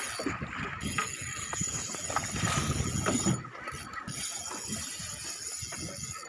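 Wind buffeting the microphone over choppy waves splashing and slapping against a small fishing boat's hull, with irregular low thumps.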